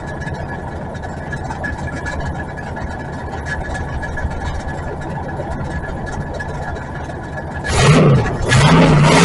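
Ford 460 big-block V8 in an old E-350 camper running at idle, a steady high whine running through it. About 8 s in the sound turns abruptly louder and harsher, dips briefly and comes back up.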